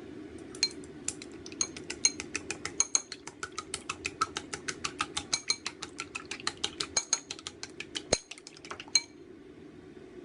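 A metal utensil clinking rapidly against a dish or pan, about five ringing strikes a second, stopping about nine seconds in. A steady low hum continues underneath.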